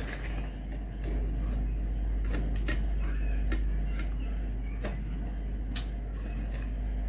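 A hand mixing rice and lentils on a glass plate: scattered small clicks and taps of fingers against the glass, irregularly spaced, over a steady low hum.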